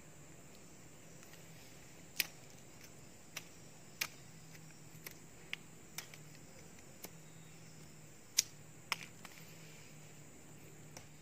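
About nine short, sharp clicks and taps, scattered unevenly over several seconds, from hands handling a thin tie wound around a young tree trunk, over a faint steady low hum.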